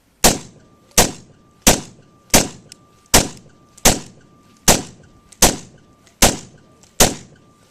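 An AR-15 carbine fired ten times in an even timed string, about three shots every two seconds, each crack followed by a short ring. This is one ten-round stage of a rifle drill, shot against a shot timer.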